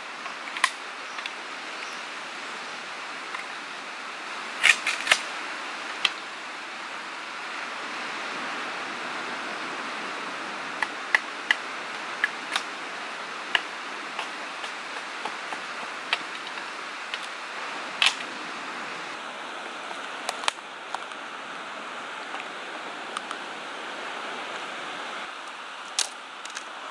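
Sharp, irregular wooden knocks as a chunk of wood is used as a mallet to strike sticks, about fifteen blows with pauses between, over a steady rush of surf.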